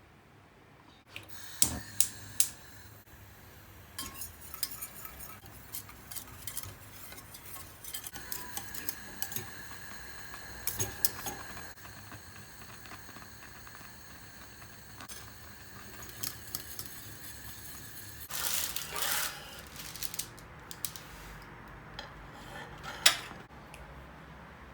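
Kitchen clatter of dishes and cutlery: scattered clinks and knocks, a few of them sharp and loud, over a faint steady high whine, with a rush of noise lasting about two seconds about three quarters of the way through.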